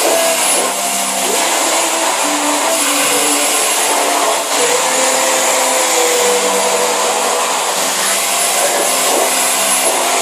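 Vacuum cleaner running continuously with a high whine. Its lower motor hum shifts in pitch now and then, with a brief dip about halfway through.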